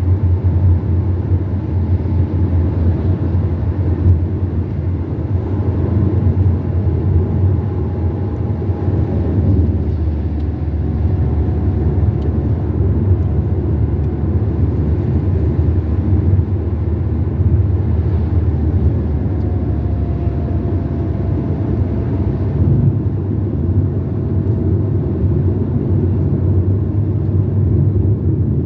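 A car driving along a highway: steady engine and road rumble with a faint whine that drifts slowly in pitch.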